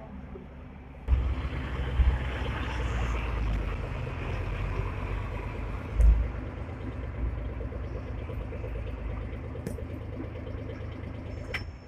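Hong Kong double-deck tram pulling away from a stop: a low rumble of its motors and steel wheels on the rails starts suddenly about a second in. Heavy thuds come at about two and six seconds in.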